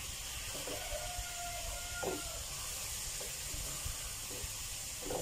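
A pounded garlic, shallot, dried chili and fingerroot paste sizzling steadily in a hot non-stick pan. A spatula scrapes and taps the pan a few times.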